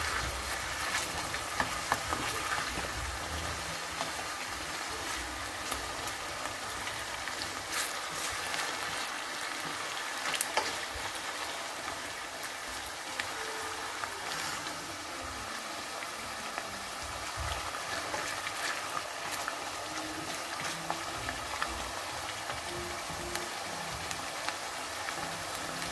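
Potato strips frying in a pan of hot oil: a steady sizzle with scattered crackles and pops. A slotted spatula stirs them now and then.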